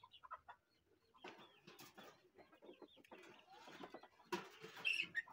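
Faint farmyard background of birds and chickens calling, broken by short noisy rustles, the loudest about four and a half seconds in.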